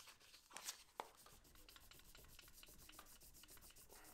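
Back of a cast steel chisel being rubbed on 1200-grit wet and dry paper over a flat block: faint, quick, even rubbing strokes. This is the back being flattened and polished.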